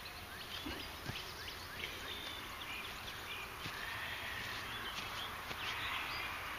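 Small birds chirping and calling over and over, many short gliding chirps, with a few faint clicks.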